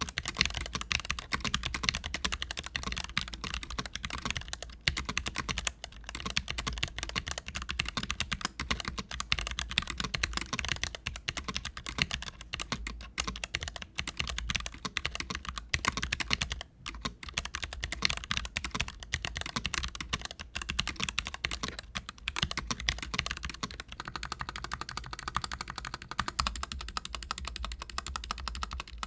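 Continuous typing on a mechanical keyboard, an NK65 Entry fitted with tactile switches and GMK keycaps, as a switch sound test. The character of the keystrokes changes about 24 seconds in.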